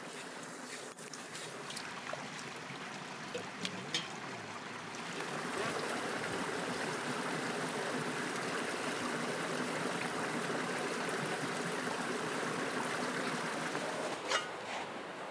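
Stream water running and trickling, getting louder about five seconds in, with a few sharp clinks of metal dishes and kettles.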